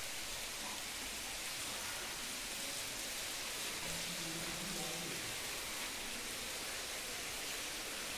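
Steady, even hiss with no clear source, with a faint pitched sound, like a distant voice, briefly about four seconds in.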